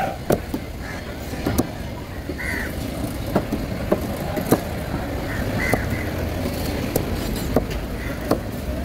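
A large knife chopping into a Spanish mackerel on a wooden board: about a dozen sharp, irregularly spaced knocks of the blade. Behind it is a steady low rumble of traffic or street noise.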